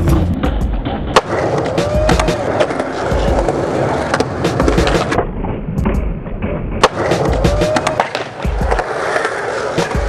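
Skateboard wheels rolling on a concrete bowl, with repeated sharp knocks of the board and trucks on the coping, over a music track with a steady bass.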